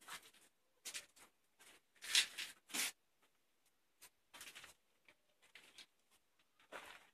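Faint, irregular scuffs and scratchy rustles from someone moving about with the camera, about eight short ones, loudest around two to three seconds in.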